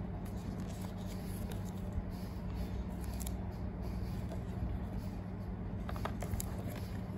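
Soft rustling and light taps of cardboard and paper wrap as a tablet is lifted out of its box, with a few small clicks about three seconds in and again near the end, over a steady low hum.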